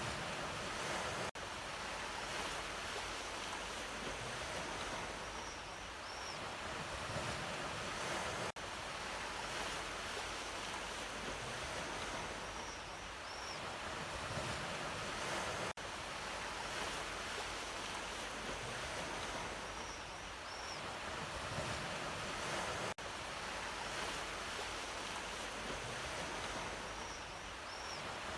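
Ocean surf washing in as a steady rush of waves that swells and eases. The recording is a short loop, with a brief dropout about every seven seconds.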